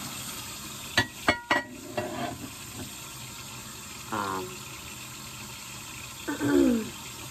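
Tap water running steadily into a kitchen sink during dishwashing, with three sharp clinks of dishes about a second in. Two short wordless vocal sounds from the woman, the later one falling in pitch.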